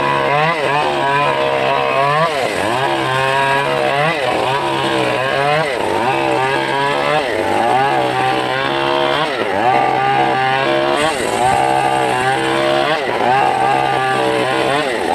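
Homemade engine-driven circular sawmill ripping a short log lengthwise into boards. The engine runs loud and continuous, its pitch dipping and recovering again and again as the blade takes the cut.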